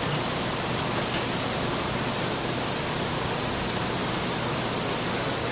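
Steady, even hiss of a restaurant grill station, with meat cooking on the flat-top griddle and charbroiler.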